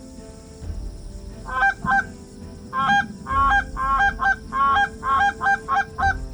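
Geese honking: a short group of honks, then a rapid, steady string of loud honks about three a second.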